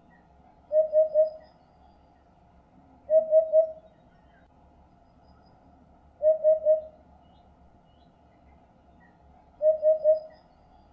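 Eurasian hoopoe singing: four phrases, each of three quick, low hoots, a few seconds apart.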